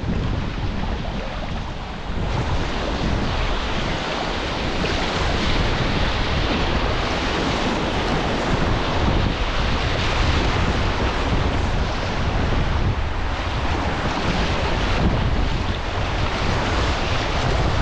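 Rushing whitewater of a river, with wind buffeting the microphone as a low rumble. It gets a little louder about two seconds in.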